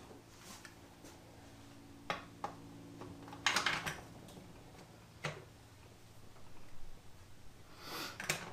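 Scattered light clicks and clinks of metal transmission parts and hand tools being handled on a workbench, with a short cluster of rattling knocks about three and a half seconds in. A faint steady hum sits underneath for the first few seconds.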